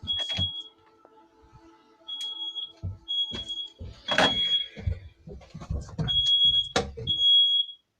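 Smoke alarm sounding a false alarm with no smoke present: short, high, single-pitch beeps about half a second long, coming at uneven gaps, mixed with several dull thumps.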